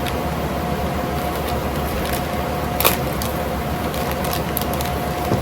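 Steady whir of running room fans, with a low hum and a thin steady tone, and a few light clicks from handling toy parts, the clearest about three seconds in.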